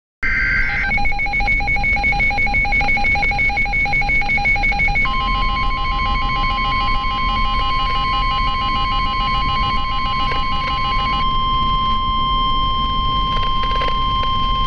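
Emergency weather alert tones on a weather radio. A brief burst of two-pitch data tones is followed by rapid electronic beeping. About five seconds in, the steady 1050 Hz NOAA Weather Radio warning alarm tone starts and runs to the end, with the beeping continuing over it until about eleven seconds in. The tones signal that a warning message is about to be read.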